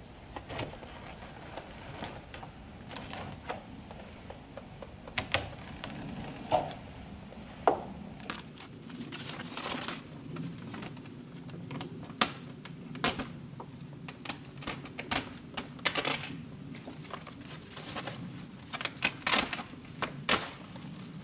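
Sheet of foil reflective barrier crinkling and rustling as it is pressed and folded into a window opening, with irregular sharp clicks and snaps, a cluster of them near the end.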